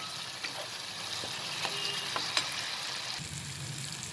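Chopped tomatoes and spices sizzling in hot oil in a metal kadai, stirred with a metal spatula that clicks and scrapes against the pan a few times.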